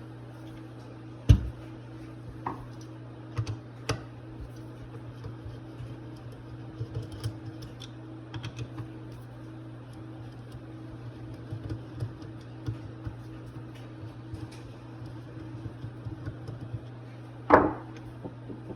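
Small hard objects being handled on a bench: scattered light clicks and taps, with a sharp knock about a second in and another near the end, over a steady low hum.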